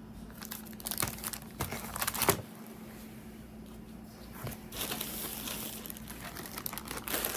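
Packaging crinkling and rustling as it is handled, in uneven bursts, the loudest a sharp crackle a little over two seconds in, then denser crinkling through the second half.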